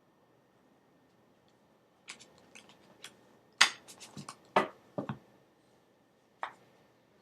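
Tarot cards and a small paper guidebook being handled: a quick run of sharp clicks, taps and paper rustles starting about two seconds in, and one more click near the end.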